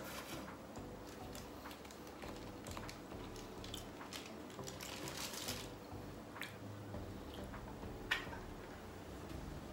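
Quiet chewing of fried chicken wings: soft mouth sounds and small crunches, with a sharper click about eight seconds in.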